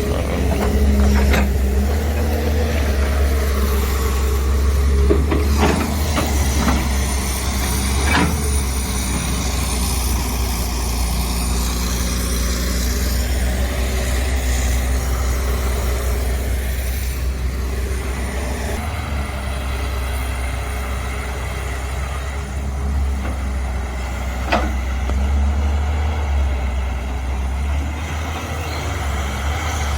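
Excavator's diesel engine running steadily as it digs, with a few sharp knocks scattered through.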